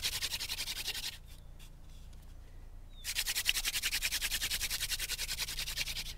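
Hand-drill friction fire in eucalyptus wood: the spindle spun between the palms grinds in the fireboard notch with a rapid, even scratching. It stops for about two seconds and then starts again, as the drilling goes on after smoke has appeared to build up the ember.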